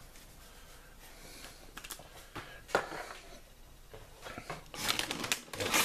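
Kitchen handling sounds while cooking. A single sharp click comes about three seconds in, then a stretch of rustling near the end.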